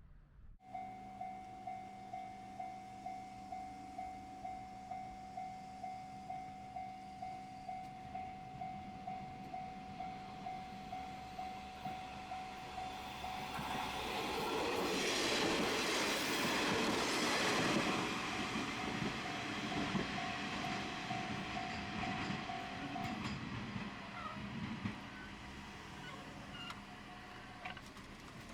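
Japanese railway level-crossing alarm bell ringing in an even ding-ding rhythm, nearly two dings a second. About halfway through, a train passes over the crossing, a loud rushing rumble of wheels on rail that swells and fades. The bell stops soon after the train has gone.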